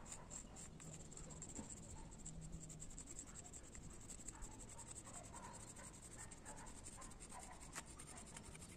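Sidewalk chalk scraping on rough concrete in quick, faint strokes as a small child draws.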